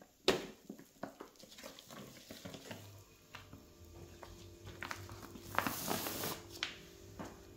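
Quiet kitchen handling while working a chocolate-filled dough: a few light knocks and a short scrape of utensils, with a faint steady hum starting a few seconds in.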